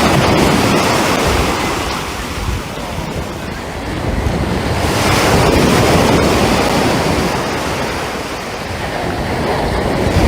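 Sea surf washing onto a beach in slow swells, loudest around the middle and again at the end, with wind buffeting the microphone.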